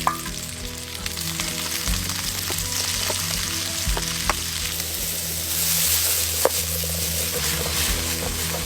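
Food frying in hot oil in a pan, sizzling steadily, with a few sharp clicks about four and six seconds in.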